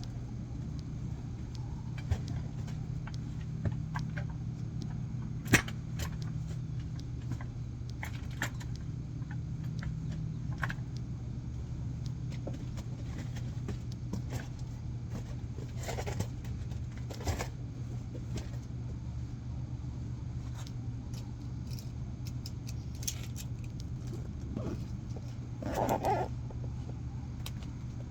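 Steady low hum of a car running, heard from inside the vehicle, with scattered light clicks and rattles and a brief louder noise near the end.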